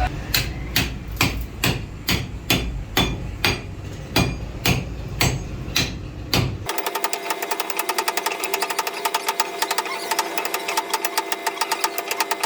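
Hammer blows on metal in a steady rhythm, about two to three a second. About six and a half seconds in, the sound cuts abruptly to a machine running with a fast, even ticking and a steady hum.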